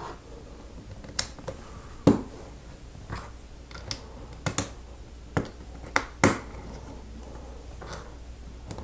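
Plastic LEGO plates clicking as they are pressed onto the studs of slope bricks: about ten sharp, irregular clicks, some in close pairs.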